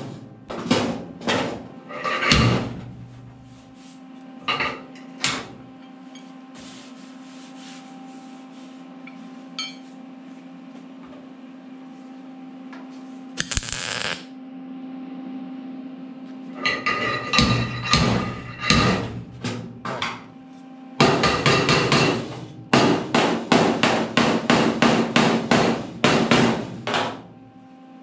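Hammer blows on the steel cowl panel of a 1952 Ford truck cab, working out a crease: a few strikes at the start, then fast runs of blows through the second half. About halfway there is a half-second burst of wire-feed welding on the panel, over a steady low hum.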